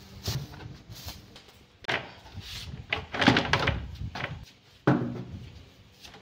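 Molded plastic garden chairs being lifted and set down on a tiled floor: several hollow knocks and clatters, the loudest a little past the middle and a sharp one about five seconds in.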